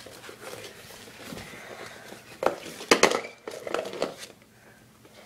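Close rustling and scuffling, with sharp clicks or knocks about two and a half and three seconds in, from a puppy playing with toys on a rug and the phone being handled close by.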